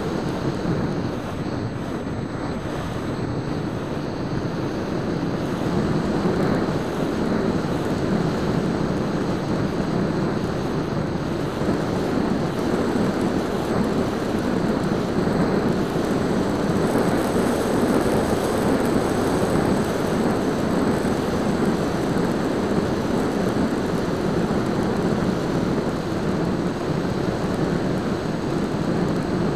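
Steady rush of airflow and the EasyStar 2 RC plane's electric motor and propeller in flight, heard through the small onboard keychain camera's microphone. It grows a little louder from about six seconds in.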